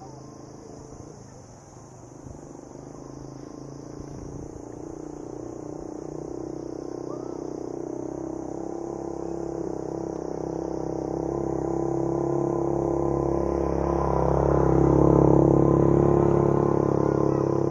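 A motor vehicle engine approaching, growing steadily louder for about thirteen seconds and loudest near the end. Insects keep up a steady high trill throughout.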